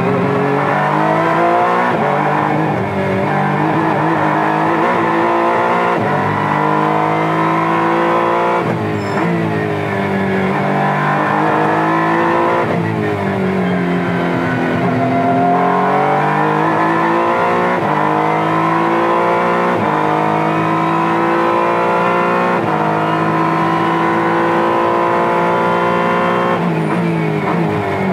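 Honda NSX GT3 race car's twin-turbo V6 heard from inside the cockpit at racing speed. Its pitch repeatedly climbs under acceleration, then drops with gear changes and braking for corners.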